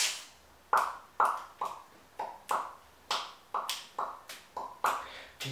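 Fingers snapping in a steady rhythm, about two sharp snaps a second, as a beat to sing along to.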